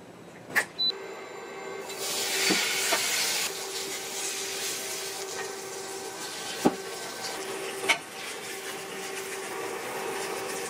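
Batter-coated garlic chives for a Korean chive pancake sizzling in hot oil in a frying pan, the sizzle starting about two seconds in as the batter goes into the pan and then holding steady. A few sharp clicks of the spatula against the pan, and a steady hum underneath.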